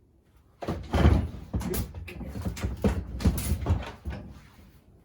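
Hammer striking the nut threaded onto the drive-side shaft of a 1957 Harley-Davidson flathead engine: a quick series of about ten metal-on-metal blows, starting under a second in, to break the engine sprocket loose from its taper.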